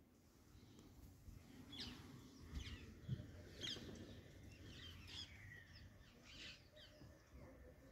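Faint bird chirps: short, high, downward-sweeping calls repeated at irregular intervals. A few soft low thumps fall in the middle.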